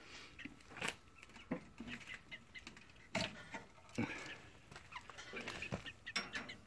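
Domestic hens clucking softly now and then, with a few short sharp knocks in between.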